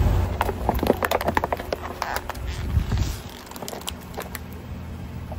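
Car tyre rolling over and crushing crunchy objects: a quick run of sharp cracks and crackles over the low rumble of the car, which drops away about three seconds in, leaving a few scattered clicks.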